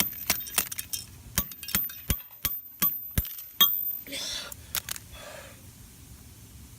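A run of sharp, irregular clicks and taps of a tool against a phone's cracked glass and casing, several a second, stopping about three and a half seconds in. A short rushing noise follows.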